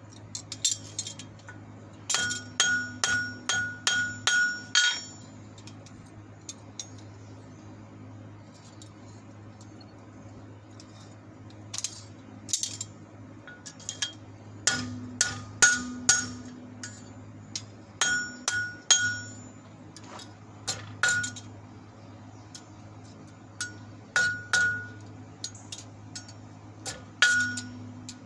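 Hand hammer striking red-hot steel (the open end of an old wrench being forged into fork tines) on an anvil, each blow ringing. There is a quick run of about seven blows a couple of seconds in, a pause of several seconds, then scattered blows and short runs of two or three.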